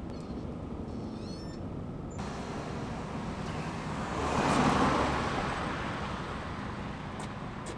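A car passing on the street, its tyre and engine noise swelling to a peak about halfway through and then fading, over a steady traffic hum.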